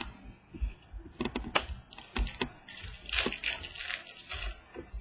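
Trading cards being handled and flipped through by hand: a run of light clicks and taps, with a denser stretch of rustling in the middle.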